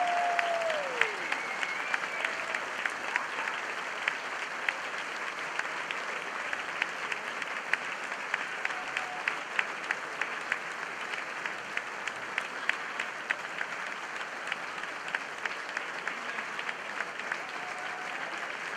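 Audience applauding steadily, with single sharp claps standing out, and a voice calling out near the start.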